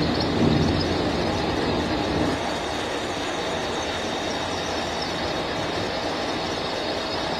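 Mini lathe working as a milling machine, its spindle turning a toothed cutter that grinds into a metal workpiece: a steady machining noise, heavier for the first couple of seconds and then even.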